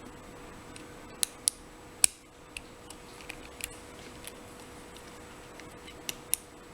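Lock pick and tension wrench working the pins of an Abus 83/45 padlock: scattered sharp metallic clicks at irregular intervals, the loudest about two seconds in. The pins have just dropped and the false set is lost, so this is picking to build the set back up.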